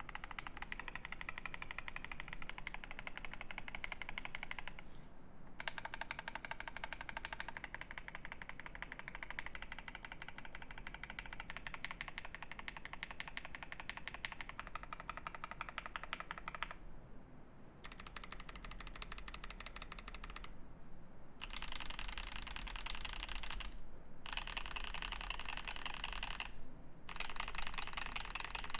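Fast typing on a custom mechanical keyboard with lubed switches: a continuous stream of keystroke clacks, broken by several brief pauses.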